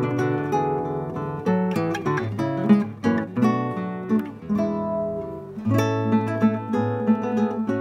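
Nylon-string classical guitar played fingerstyle, a melody of plucked notes over bass notes; in the last couple of seconds a low bass note rings under quickly repeated higher notes.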